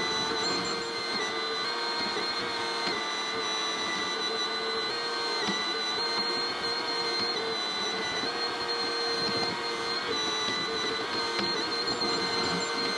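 Cat 304E mini excavator's diesel engine running steadily under working load, with a steady whine over it, heard from the cab while the bucket spreads and smooths dirt.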